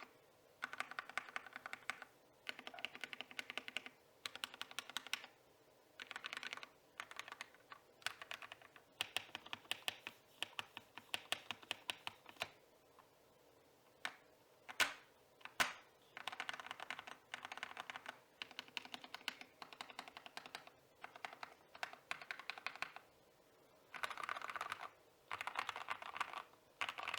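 Custom mechanical keyboard being typed on in quick bursts with short pauses between them, with two louder single key strikes about halfway through. The board is built and tuned for a deep typing sound.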